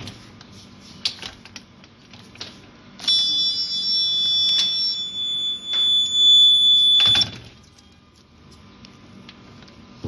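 Piezo buzzer of a homemade clothes-peg door alarm sounding a steady high-pitched tone for about four seconds as the door opens, then cutting off sharply. Short clicks and knocks of handling and the door come before and after it.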